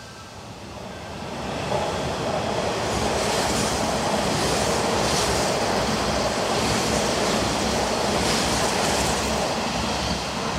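Kintetsu electric commuter train running in alongside the platform: a steady, loud rumble of wheels on rail and running gear that builds up over the first two seconds and holds until near the end.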